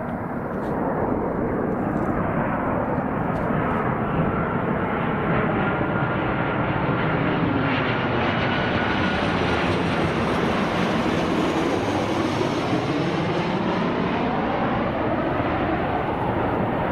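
Boeing 737-800 on final approach with gear down, its two CFM56-7B turbofans passing overhead. A steady jet noise with a faint high whine in the middle, its tone sweeping down and up as the plane goes over.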